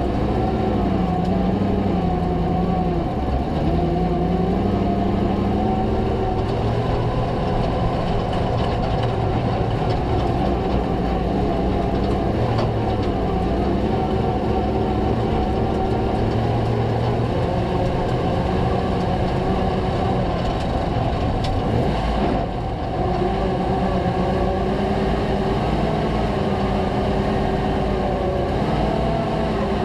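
Ford V8 engines of WW2 Universal Carriers running as the tracked column drives by, with steel tracks clattering on gravel. The engine note rises and falls as the carriers change speed.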